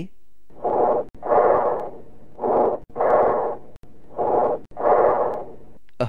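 Bronchial breath sounds recorded over the chest: three breaths, each a short blowing inspiration, a brief pause, then a longer, harsher expiration. This is the breathing heard over consolidated lung, where the windpipe's sound reaches the chest wall without its higher pitches filtered out.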